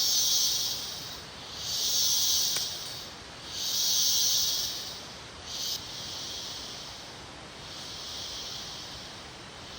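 Insects making a shrill, high buzzing that swells and fades in waves about every two seconds, three times, with a short burst just under six seconds in, then settles into a softer, steadier drone.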